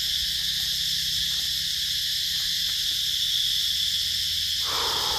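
Steady high-pitched chorus of insects, with a brief rustle of leaves near the end.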